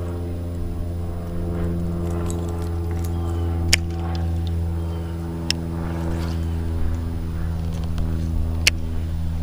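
A boat motor running with a steady hum, and two sharp clicks, one about four seconds in and one near the end.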